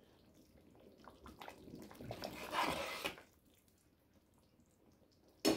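A ladle stirring chunky cooked tomatoes in a stainless steel pot: a soft, wet sloshing that builds for about three seconds and then stops.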